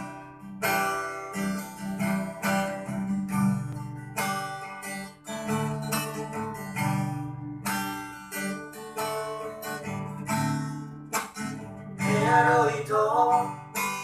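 A nylon-string classical guitar strummed in chords, a rhythmic intro pattern with the strokes coming about twice a second.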